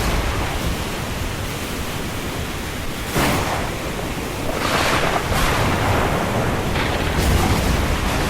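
Windstorm ambience: a steady rush of wind and rain, with gusts swelling about three seconds in and again around five and seven seconds.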